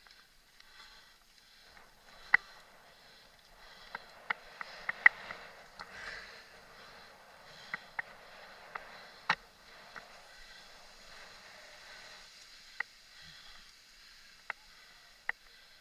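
Mountain bike ridden over a bumpy dirt trail: irregular sharp clicks and knocks from the bike rattling over bumps, the loudest about two, five and nine seconds in, over a steady hiss of wind and tyre noise.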